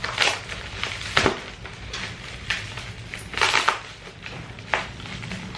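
Scissors snipping into a brown parcel wrapping and the wrapping being torn and pulled open, in irregular crinkly rustles. There is a sharp snip about a second in and a longer tearing rustle past the middle.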